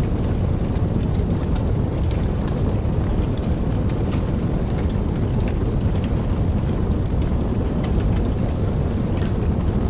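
Fire burning with a steady low rumble and scattered soft crackles and pops of burning wood.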